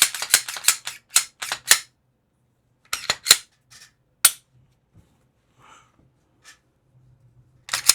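A rapid run of sharp clicks and clacks of hard objects being handled, then a few single clicks and faint ticks, and one loud clack near the end.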